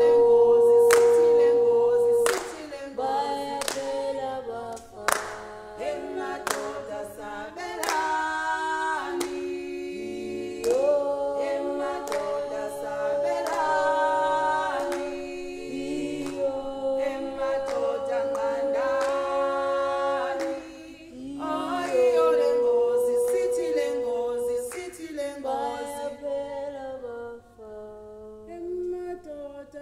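A small group of voices singing a cappella in harmony, holding long sustained notes, with hand claps keeping time through most of it. The claps thin out near the end.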